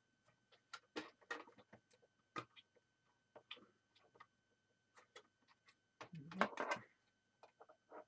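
Light plastic clicks and knocks from handling a Zebra GK420d printer's top cover while a flat ribbon cable is fitted into its connector, with a louder, longer clatter of handling about six seconds in.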